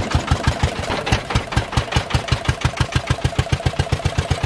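Small engine driving a roadside sugarcane-juice crusher, running steadily with an even, rapid beat of about ten thuds a second.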